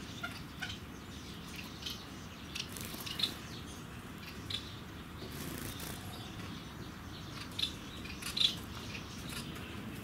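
Scattered short, high bird chirps from the aviary, a few louder ones about three seconds in and again near the end, over a steady low background hum.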